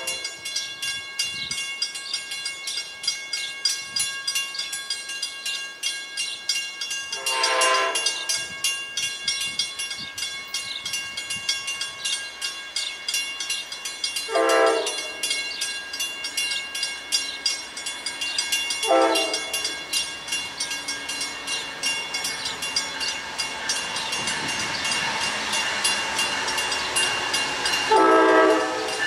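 Amtrak GE Genesis P42DC diesel locomotive sounding its air horn four times on approach, the first and last blasts longer, over the steady fast ringing of a grade crossing bell. The rumble of the oncoming train grows near the end.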